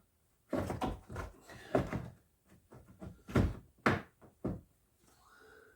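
A run of about six knocks and clattering thuds, as of parts or tools being handled, the loudest about three and a half seconds in.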